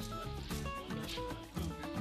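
Background music with a steady beat, about two beats a second, over held melody notes and a bass line.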